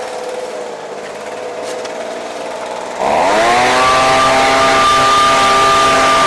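Ryobi two-stroke backpack blower engine idling, then about three seconds in the throttle is opened: the engine revs up quickly and holds steady at high speed with a rush of blown air.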